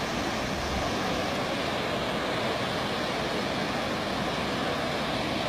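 Flash-flood water rushing down a street: a steady, unbroken rush of water noise.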